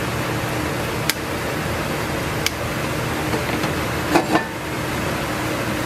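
Steady kitchen hum with a plastic spatula working wet vegetable batter in a stainless steel bowl: a couple of light clicks, then about four seconds in, two quick clinks that ring off metal.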